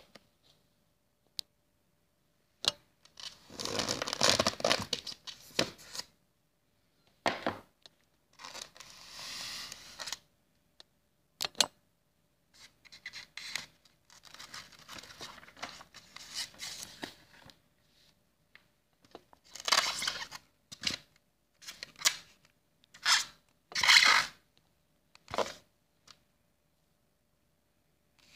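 Packaging of a boxed airsoft pistol being handled: cardboard box and styrofoam insert rubbing and scraping, with paper rustling. It comes as a series of short noisy bursts separated by pauses, with a few sharp clicks.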